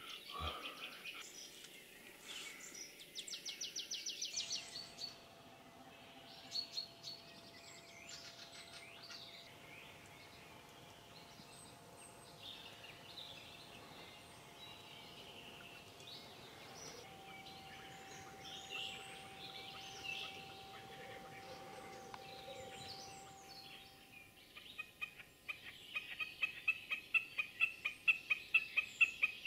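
Wild birds singing and calling in a spring marsh: scattered chirps and a quick trill, then, from near the end, a loud, regular series of calls about three a second.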